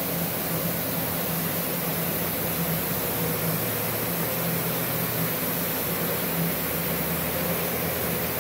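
Multipro Cut 120 inverter plasma cutter switched on and idling, its cooling fan giving a steady whir with a low hum.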